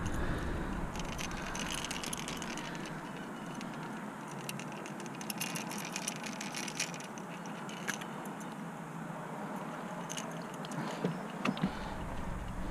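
Light metallic clicking and scraping of a topwater lure's thin-wire treble hooks being worked out of a bass's mouth by hand, with a steady hiss behind.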